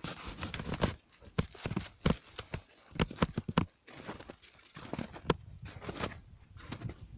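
Footsteps walking along a trail: an irregular run of short, sharp steps and knocks, a few a second.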